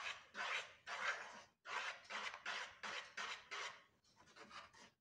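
Wooden spoon stirring a thick mix of cocoa powder and condensed milk in a pan, rasping scrapes about two a second that slow and stop near the end.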